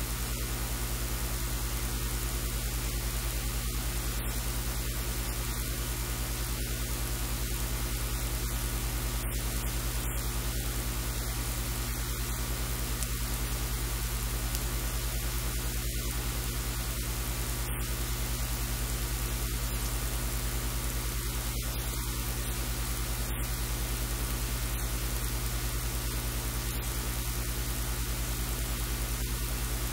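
Steady static hiss over a low electrical hum.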